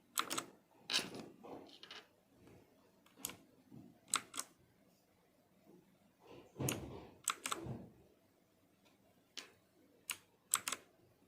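Clicky blue-switch keys on a mini mechanical keyboard being pressed one at a time, sharp clicks scattered irregularly and often in quick pairs. A duller knock of the keyboard being handled comes about seven seconds in.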